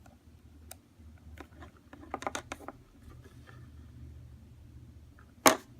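Small clicks and taps from handling the sunglasses and icon pieces. A quick cluster of clicks comes about two seconds in, and one sharper, louder click comes near the end.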